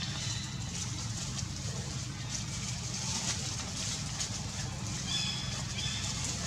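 Steady outdoor background with a low hum and no clear event. About five seconds in come two short, faint high chirps.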